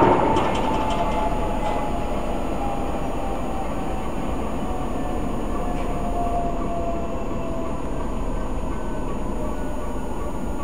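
Class 14 diesel-hydraulic locomotive's Paxman 6YJXL diesel engine running steadily, with a whine that slowly falls in pitch. This is the freshly installed replacement power unit on its first run after overhaul.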